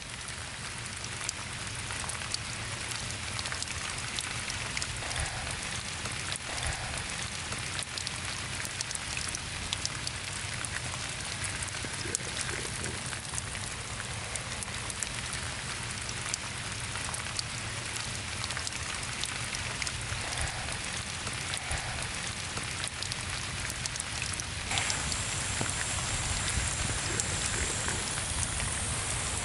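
Water from a garden hose spray nozzle sprayed high into the air and falling as a simulated rain shower: a steady pattering of drops. About 25 seconds in it grows a little louder and a thin high hiss joins it.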